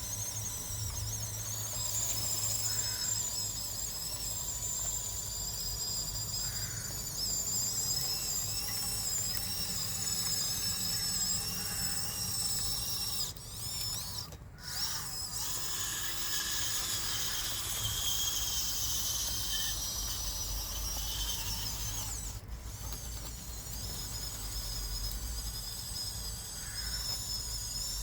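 Electric drive motors and gearboxes of a radio-controlled model bulldozer whining, the pitch wavering up and down as it drives; the sound drops out briefly twice, about halfway and near three quarters through.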